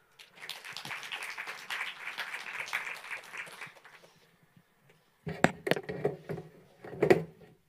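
Audience applauding for about three and a half seconds, dying away about four seconds in. Near the end come several loud, sharp knocks and thumps, louder than the applause.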